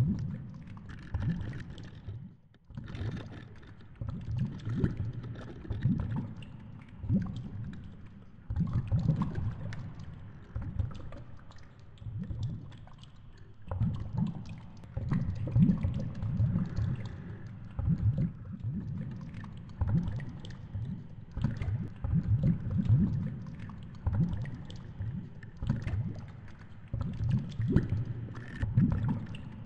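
Low, irregular swishing and thudding of water against a GoPro's underwater housing as it hangs and moves on the fishing line, coming in uneven pulses every second or so.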